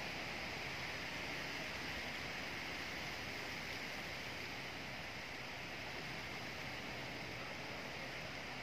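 Wind rustling through tree leaves, a steady, even hiss with no separate gusts or knocks.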